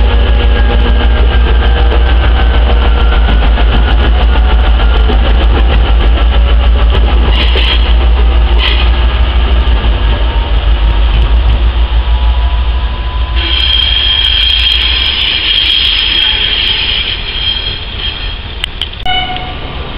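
Vossloh G2000 diesel locomotive passing close and pulling away, its diesel engine running with a heavy, pulsing low rumble that fades about two-thirds of the way through. A steady high-pitched wheel squeal then sets in for several seconds, with a few clicks near the end.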